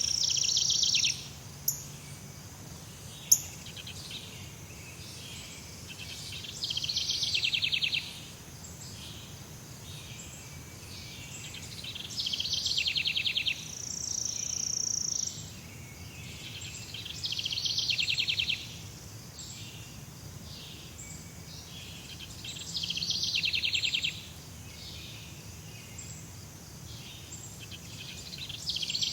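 Jungle ambience: a high, rapidly pulsing trill from an insect or bird, lasting a second or so and repeating about every five to six seconds over a faint steady hum, with a steady high whine near the start and again about halfway. Two sharp clicks in the first few seconds.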